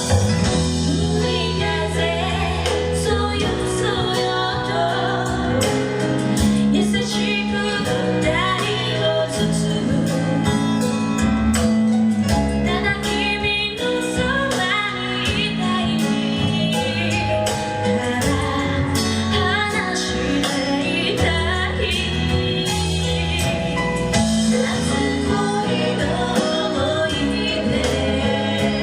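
Live pop song: a female voice singing over band accompaniment with a steady drum beat.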